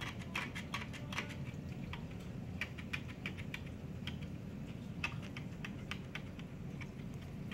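Magnetic aquarium glass cleaner with a razor blade being drawn across the glass, making a string of irregular light clicks and ticks as it scrapes algae off, over a steady low hum.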